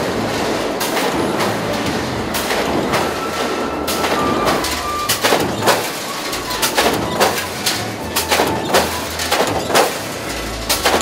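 SIMPAC eccentric mechanical stamping presses of a tandem line running: steady machine noise, then from about five seconds in a quick, uneven run of metallic knocks and clatter from press strokes and sheet-metal parts moving through the dies.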